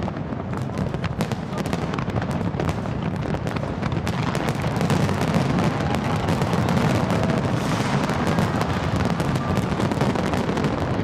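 A fireworks display with many shells bursting in quick succession: dense cracks and bangs over a continuous low rumble, growing a little louder midway.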